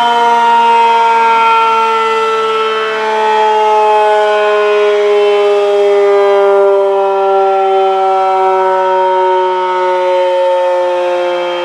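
Federal Signal Model 5 fire siren sounding loudly in its attack-cycle test, its wail gliding slowly and steadily down in pitch.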